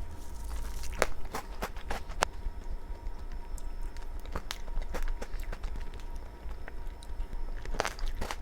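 Eating sounds: scattered sharp taps and clicks, like a spoon against a dish, over a steady low hum.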